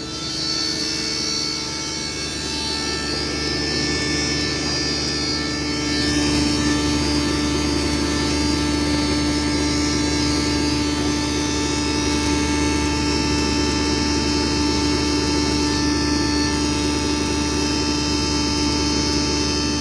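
A 20 HP double-chamber stoneless grinder with blower and cyclone running steadily while grinding split chana dal into besan: a whine of many steady tones over a low hum. It grows a little louder about six seconds in.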